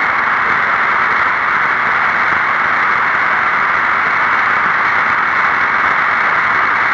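Steady hiss of an open voice radio channel, the air-to-ground loop from the space shuttle carried with no voice on it, held in a narrow midrange band.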